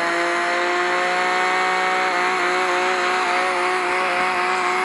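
Video game car engine sound holding steady high revs while cruising at speed, a constant engine note that shifts slightly in pitch about two seconds in.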